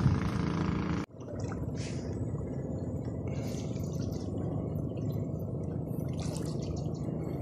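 Lake water lapping and dripping at the shore over a steady low rumble, with scattered faint ticks. A louder steady noise, like a motor, fills the first second and cuts off abruptly.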